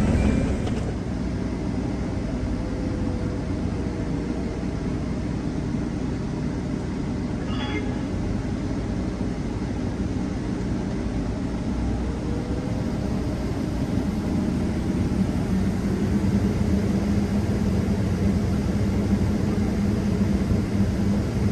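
Steady engine and road noise of a vehicle in motion, heard from inside the cab, with a low hum that grows a little louder after about fifteen seconds.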